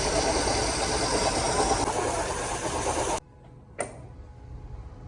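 A machine running loudly and steadily, which cuts off suddenly about three seconds in; a single sharp knock follows a little later against a low background.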